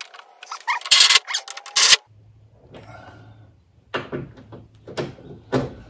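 Ratchet wrench clicking in quick bursts as the bolts are snugged down, loudest in the first two seconds, followed by a few lighter knocks.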